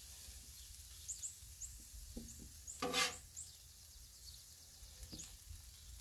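Metal spatula scraping and pushing food across the steel top of a Blackstone griddle, with a few short scrapes and one louder scrape about three seconds in.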